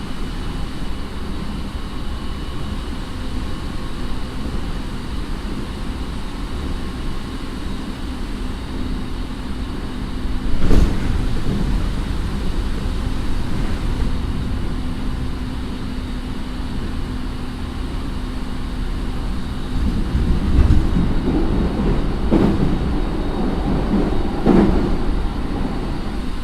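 Running sound inside a JR 209 series electric train's motor car (Mitsubishi IGBT drive, MT68 traction motors): a steady rumble of wheels on rail under a faint steady motor whine. There is a sharp knock about eleven seconds in, and several heavier thumps from the wheels near the end.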